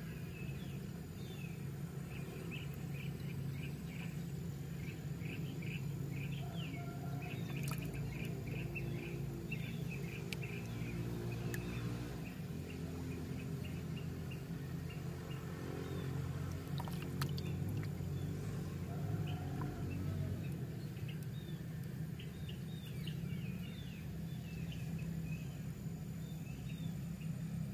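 Small birds chirping in many short, quick notes, over a steady low hum.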